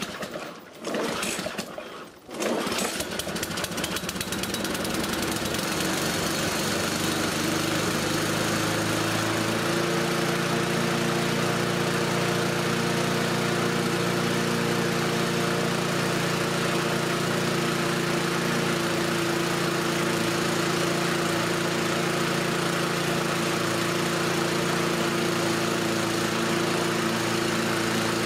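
Petrol lawnmower engine starting in the first few seconds, then settling by about ten seconds in to steady, even running. It is held by aftermarket governor springs at a governed speed still a little fast.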